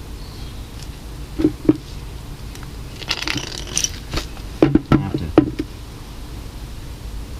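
Light metallic clinks and knocks of small metal parts being handled, two near the start and a quick cluster of four or five about five seconds in, with a short scraping rustle between them.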